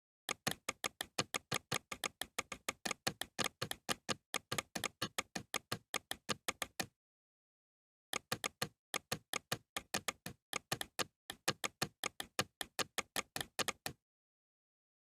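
Bandicam screen recorder's mouse-click sound effect, repeated rapidly at several clicks a second in two long runs, with a pause of about a second around seven seconds in and dead silence between clicks.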